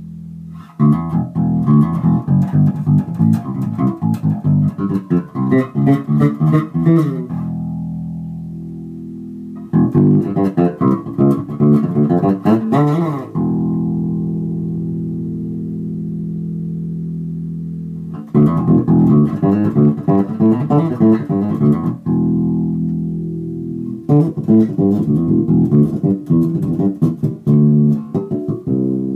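Carvin SB5000 five-string electric bass played with the fingers: four bursts of quick plucked runs, each followed by a note or chord left to ring for a few seconds.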